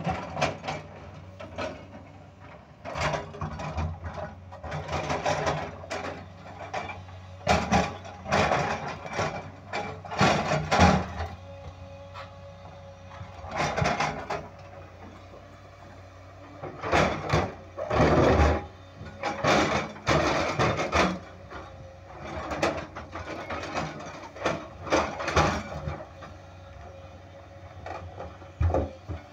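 Tracked hydraulic excavator working in rock: its engine runs with a steady hum under repeated, irregular bursts of clattering and scraping as the bucket moves and breaks up boulders.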